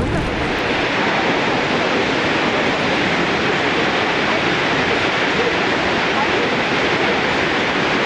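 Kegon Falls, a tall plunge waterfall, rushing steadily: an even, unbroken wash of falling water.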